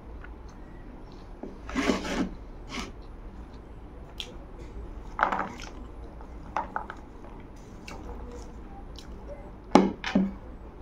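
Mealtime handling sounds: a handful of short knocks and scrapes of plates and a steel tumbler on a wooden table, spread through, between quiet eating noises as rice is mixed and eaten by hand.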